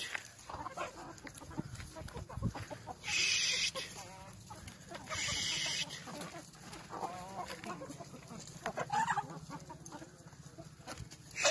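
A flock of domestic chickens clucking, with short wavering calls here and there. Two brief bursts of hissing noise, about three and five seconds in, are louder than the birds.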